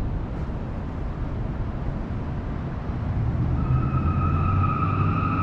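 Low, steady rumble of city traffic. About three and a half seconds in, a louder engine hum builds with a steady high whine over it.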